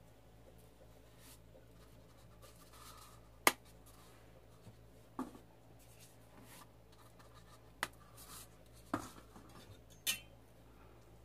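About five sharp clinks and knocks of a cup against a stainless steel mixing bowl as pancake mix is poured in. The loudest comes about three and a half seconds in, over a faint steady low hum.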